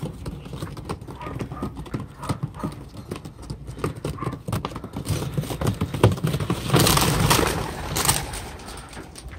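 Racing pigeons shuffling and flapping in a wire carrier cage, a quick run of light clicks and knocks from feet and wings on the wire and plastic. About seven seconds in comes a louder burst of wing flapping and clapping as the birds take off.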